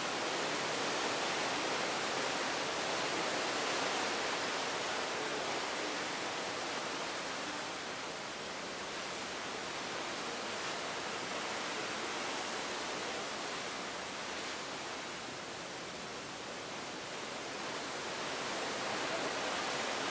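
Steady rush of sea water churning along the side of a moving cruise ship, with wind, easing a little and building again a couple of times.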